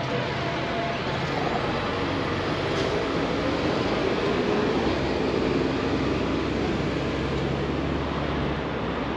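Outdoor city and construction-site noise dominated by a heavy engine running, swelling a little around the middle and easing off near the end, with a low steady hum underneath.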